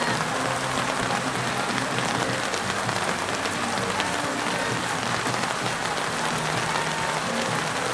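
Steady rain falling, with many small drops ticking close to the microphone.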